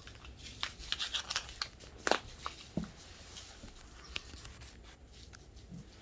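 Handling of Play-Doh toys and play food: scattered light clicks, taps and rustles, the loudest tap about two seconds in.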